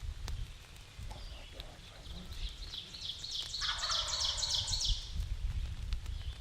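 Wild turkey gobbler gobbling once, a rapid rattling call starting about two and a half seconds in and lasting about two and a half seconds, over a low steady rumble.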